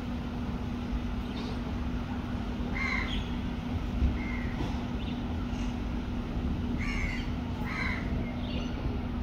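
Crows cawing: short, harsh calls repeated about once a second, over a steady low hum and rumble.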